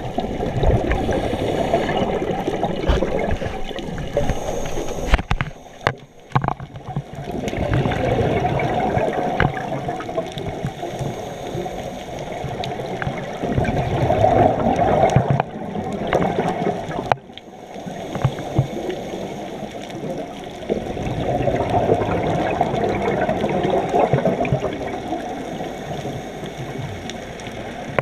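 Scuba divers' exhaled regulator bubbles, heard underwater as a bubbling, gurgling rumble that comes in repeated breaths of a few seconds each, with short lulls between them.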